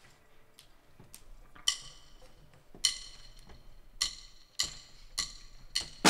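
Drumsticks clicked together in a count-in to a rock song: two slow clicks, then four faster ones at double the pace. The band, with its drum kit, comes in right at the end.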